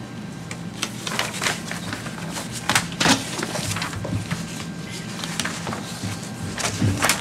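Papers rustling and crinkling, with scattered sharp clicks and taps, over a steady low hum.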